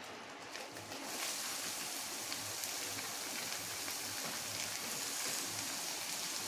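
Chopped onions sizzling as they are tipped into hot oil in a steel kadhai; the frying hiss comes up about a second in and then holds steady.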